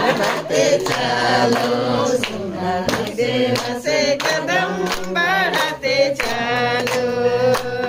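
A group of people singing a celebration song together in unison, with hand claps scattered through it.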